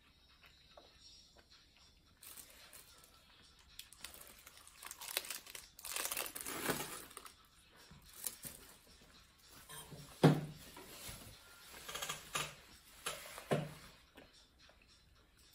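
Crinkling and rustling of a thin plastic food wrapper handled while eating a packaged mame daifuku, coming in irregular bursts. Two short, louder knocks come about ten seconds in and again near the end.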